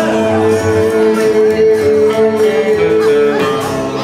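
Live rockabilly trio playing on upright bass, acoustic guitar and hollow-body electric guitar. One note is held steady through most of the stretch.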